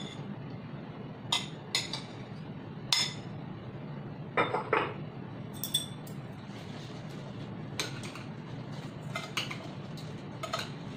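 Metal spoon, chopsticks and fork clinking and scraping against a glass bowl and a ceramic bowl while salad dressing is spooned out and the salad is tossed: about a dozen scattered clinks at irregular intervals over a steady low hum.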